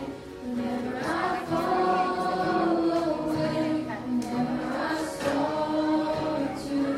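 Several voices singing a hymn together in slow, held notes.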